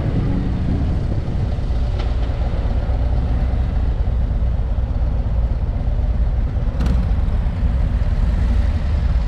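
Touring motorcycle engines running with a steady low rumble as the bike rolls down to walking pace behind a group of motorcycles waiting at a stop. There is a faint tick about two seconds in and a brief sharp sound near seven seconds.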